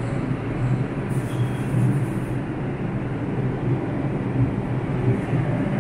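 A subway train running at the station platform: a steady low drone, with a brief high hiss about a second in.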